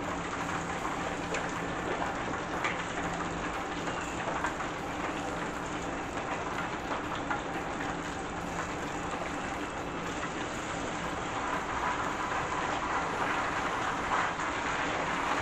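Breaded onion rings and jalapeños deep-frying in hot oil in aluminium pans: a steady, dense sizzle with scattered crackles.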